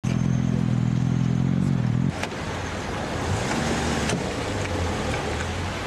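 A vehicle engine idling with a steady low hum for about the first two seconds, then a cut to quieter, even street noise with a faint hum and a few light clicks.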